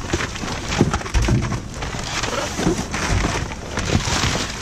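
Plastic bags, wrappers and cardboard rustling and crinkling as hands rummage through trash in a dumpster, with a few dull knocks.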